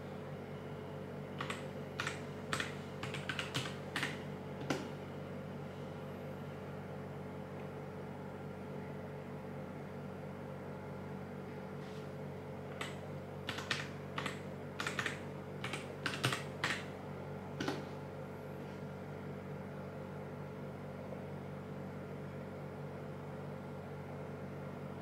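Computer keyboard keystrokes typing a Wi-Fi password, in two short spells of clicks separated by a pause. A steady low hum runs underneath.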